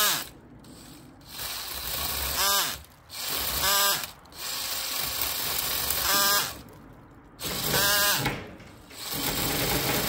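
Cordless drill driving a drill-powered mini chainsaw attachment into a branch in repeated short bursts, the motor whirring up and then winding down with a falling pitch each time it stops. The saw's teeth keep jamming because the drill lacks the speed and power to run it through the wood.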